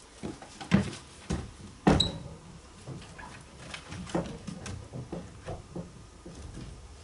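Irregular knocks and thumps, the two loudest about one and two seconds in, the second with a brief high ring, then softer knocks.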